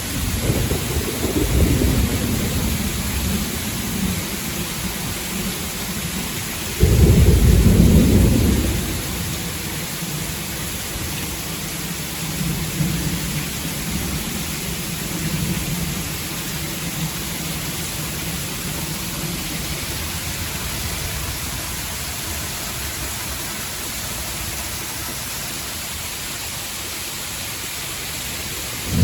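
Heavy rain pouring steadily in a gusty thunderstorm, with low rumbling at the start. About seven seconds in, a sudden loud low rumble lasts about two seconds, then fainter rumbling follows.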